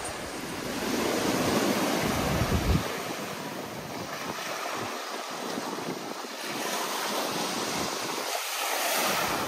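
Sea surf rushing and washing up the sand in a steady hiss that swells twice, with wind buffeting the microphone.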